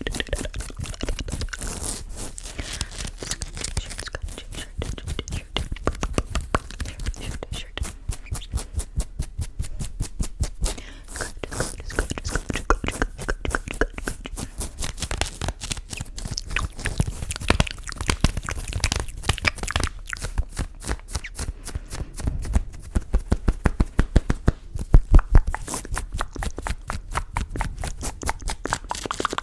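Close-miked ASMR trigger sounds: a dense run of crackling clicks and rubs against the microphone, with a few louder thumps about 25 seconds in.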